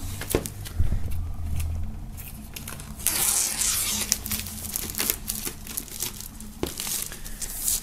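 Plastic shrink-wrap film being peeled and torn off a vinyl LP jacket, crinkling and crackling, with a denser stretch of rustling about three seconds in.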